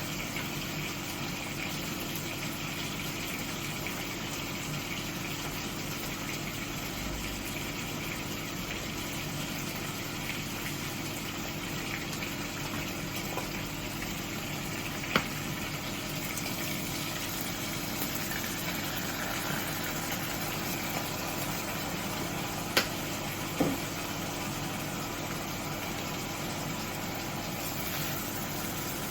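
A steady mechanical hum with a low hiss, like a running fan or motor, and a few sharp clicks: one about halfway through and two close together later on.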